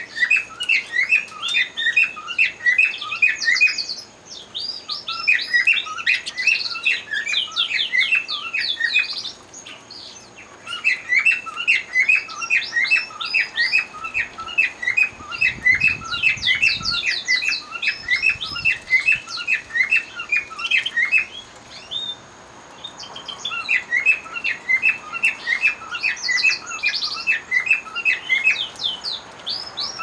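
Domestic canary song: long, loud phrases of fast repeated trilled notes, broken by short pauses about 4, 10 and 22 seconds in.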